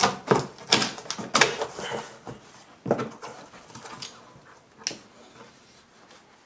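Flaps of a large corrugated cardboard shipping box being pulled open by hand: a quick run of sharp cardboard creaks and scrapes in the first two seconds, a few more about three and five seconds in.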